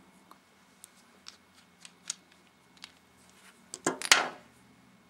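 Small metal parts of a rebuildable tank atomizer being handled: scattered light clicks, then a sharper cluster of clicks and a brief scrape about four seconds in, as the O-ring-fitted stainless steel airflow ring is worked on the deck.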